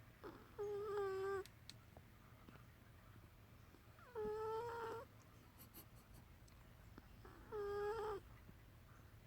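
A sleeping cow snoring: three pitched, whining snores, evenly spaced about three and a half seconds apart, each lasting just under a second.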